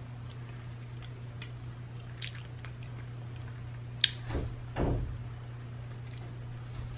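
Quiet sounds of sushi being picked up and eaten without chopsticks: a few faint ticks, then a sharp click about four seconds in, followed by two soft, muffled thumps, over a steady low hum.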